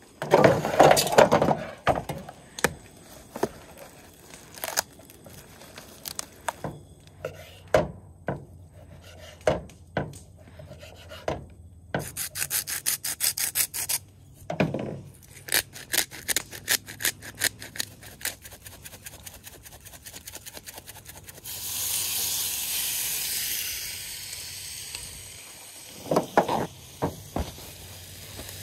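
Raw chicken being prepared on a bamboo cutting board: the board is handled and set down with a clatter, then a knife knocks and chops on the wood, followed by quick rattling ticks as seasoning is shaken from a shaker jar. There is a few seconds of rustling hiss near the end, then a few more knocks.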